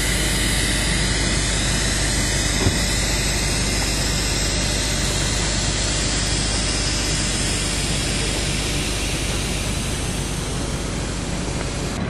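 Steady, even noise of four-wheel drives moving slowly on a dirt forest track, engine and tyre sound blended with hiss, with one small click about two and a half seconds in.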